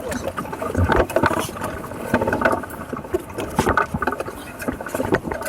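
Irregular knocks, clicks and rattles aboard a small sailing catamaran, over a steady patchy background.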